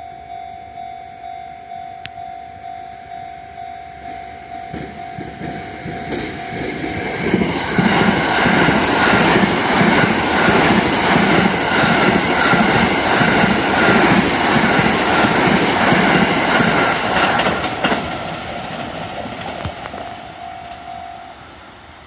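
Japanese level-crossing warning bell sounding in a steady pulsing ding-ding. About seven seconds in, the 285 series Sunrise Express electric sleeper train passes over the crossing, its wheels clattering rhythmically over the rail joints for about ten seconds and drowning out the bell. As the train recedes, the bell is heard again briefly and then stops.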